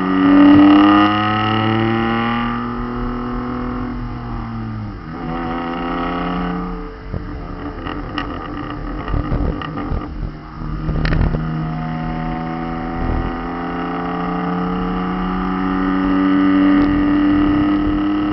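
Straight-piped BMW M52TU 2.8-litre straight-six with no mufflers or silencers, revving: the note rises, then falls away. Partway through comes a spell of pops and crackles, and near the end the note climbs slowly again.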